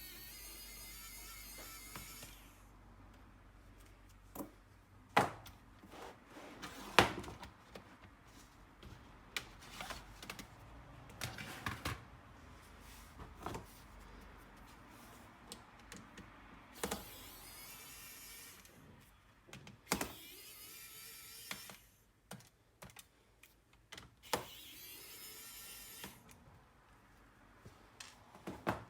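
Hands handling the plastic case and small parts of an Acer Aspire E5 laptop during disassembly: scattered clicks, taps and knocks, the loudest two about 5 and 7 seconds in. Short stretches of a steady high-pitched hiss come at the start, about 17 seconds in and about 25 seconds in.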